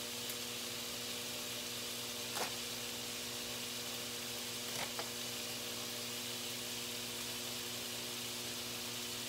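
Melted butter sizzling steadily in a frying pan, with a low electrical hum underneath and a few faint clicks and crinkles as a plastic bacon package is opened.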